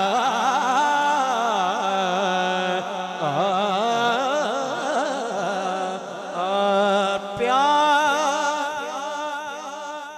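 A male voice singing a Punjabi naat into a microphone, in long drawn-out notes that waver up and down, with a brief breath about six seconds in before the next phrase.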